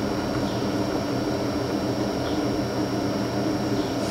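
Steady low electrical hum and hiss, with a thin high-pitched whine above it: the constant background noise of running bench test equipment.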